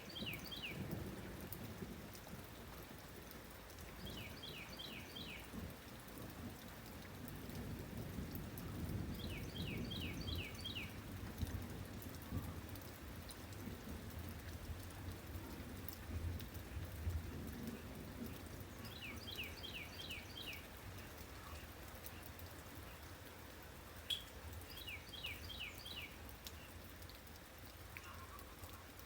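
Steady rain ambience with a low rumble that swells and fades. A bird repeatedly gives a quick run of five or six high descending notes, five times, a few seconds apart.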